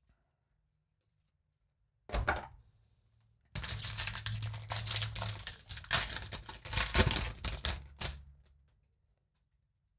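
Foil wrapper of a Magic: The Gathering booster pack being torn open and crinkled by hand. A short rustle comes about two seconds in, then several seconds of dense crackling and crinkling that stops abruptly.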